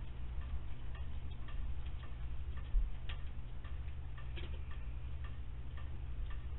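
Faint, even ticking about two times a second over a steady low hum, with one sharper click about three seconds in.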